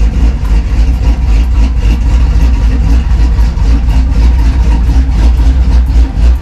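Truck engine running at low revs with a deep, steady rumble.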